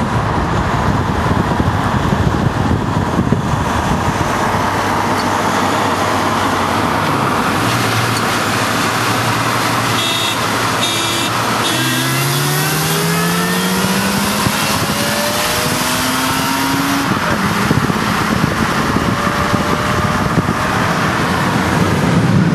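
Car engine at hard acceleration in a street race, over a steady rush of wind and road noise. It holds a low, steady note at first. From about halfway through it climbs in pitch, dropping back and climbing again several times as the gears change.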